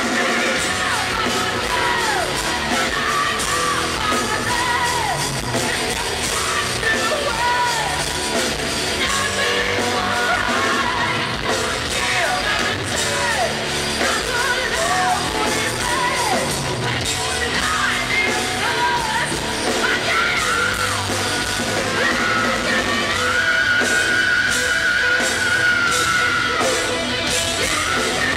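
Live rock band playing in a large hall, with a high lead voice singing and yelling over guitars and drums, ending in one long held high note about 23 seconds in.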